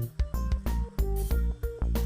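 Background music with a steady beat: heavy bass notes and drum hits.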